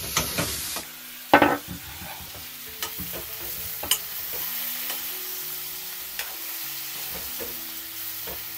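Food sizzling in a metal kadai on a gas stove while a metal spoon stirs it, scraping and knocking against the pan a few times, the sharpest knock about a second and a half in.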